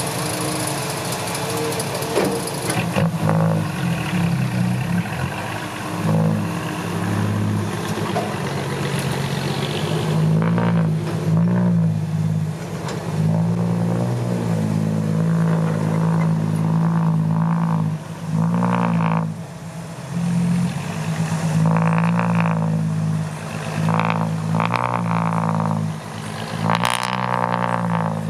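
Heavy diesel engine of a loaded dump truck running hard under load, its pitch rising and falling as it is revved up and down.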